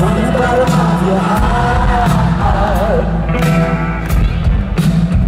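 Rock band playing live, heard from within the audience: drums, bass and electric guitar.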